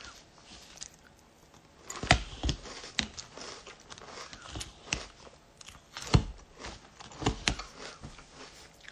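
A person chewing a mouthful of crunchy frosted cornflakes cereal close to a phone microphone: irregular crunches, the loudest around two, six and seven seconds in.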